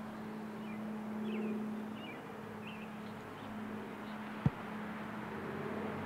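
Steady hum of a distant engine, swelling slightly and easing off, with a few faint bird chirps in the first half. A single sharp click about four and a half seconds in.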